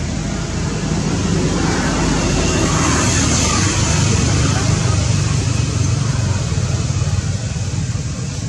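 Steady engine and traffic noise from motor vehicles, a low hum that grows a little louder through the middle and eases off toward the end.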